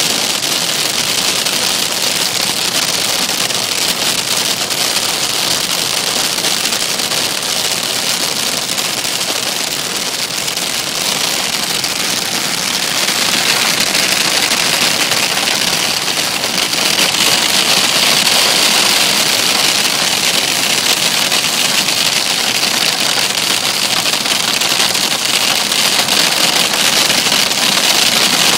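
Hailstones pelting a vehicle in a dense, continuous clatter, growing somewhat louder a little past halfway through.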